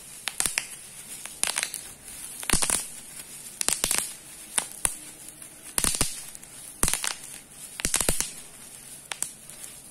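Bubble wrap crumpled and squeezed in the hand, crinkling and crackling in sharp, irregular bursts about once a second.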